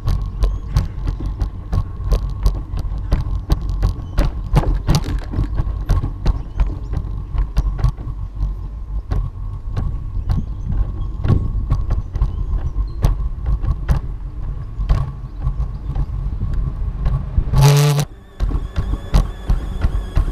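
Footsteps at about two a second and low handling rumble from a walking gimbal-mounted action camera, under a steady whine from the Feiyu-Tech G5 gimbal's motors. Near the end a brief loud tonal burst, after which the whine turns into several high-pitched tones: the gimbal motor noise getting worse, which the owner puts down to a broken USB cable that shorted out the motors.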